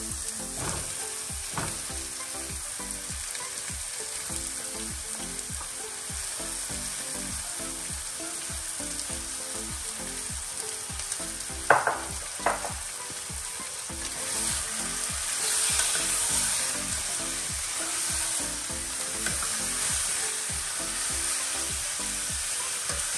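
Chicken frying and sizzling in a pan with a steady hiss that grows a little louder in the second half. A little before halfway there are two sharp clinks of a spoon against the pan.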